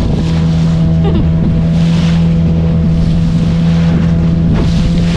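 A motorboat's engine running steadily at a constant pitch, under a rushing noise of wind and water that swells and falls as the boat moves through choppy sea.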